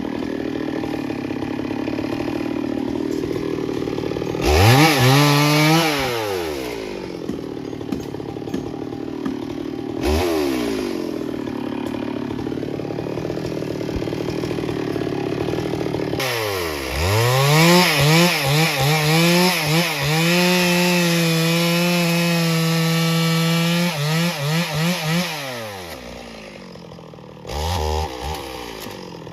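Chainsaw idling and revving in short blips, then held at full throttle for about eight seconds while cutting wood, before dropping back to idle and blipping again.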